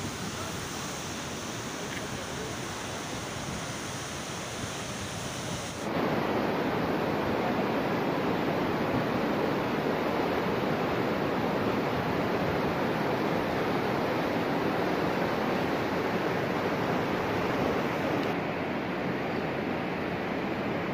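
Steady rushing roar of a swollen river in flood. It jumps louder about six seconds in and then holds steady.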